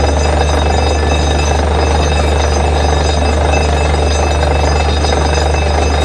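Borewell drilling rig running steadily: a loud, constant low drone with steady high-pitched whining tones over it.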